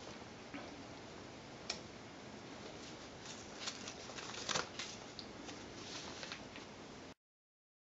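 A Ragdoll cat biting and kicking a small fabric catnip toy, heard as scattered soft clicks and rustles over a steady faint hiss. They come thickest in the middle and are loudest about four and a half seconds in, and all sound cuts off suddenly near the end.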